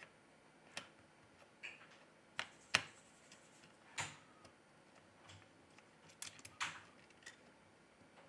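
Irregular small clicks and taps of smartphone parts being handled: circuit boards set into the phone's frame and pressed into place. The loudest click comes a little under three seconds in, with a quick cluster of clicks near the end.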